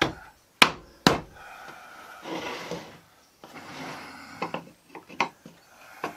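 Wooden frame parts knocking and scraping against each other on a workbench while the joints of a shelf frame are dry-fitted by hand: two sharp wooden knocks about half a second apart near the start, a stretch of sliding and rubbing, then a few lighter clicks.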